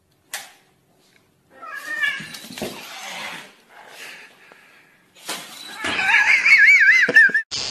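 Domestic cat yowling in a warbling, wavering pitch: a warning yowl, with a shorter call about two seconds in and a longer, louder one from about five seconds in.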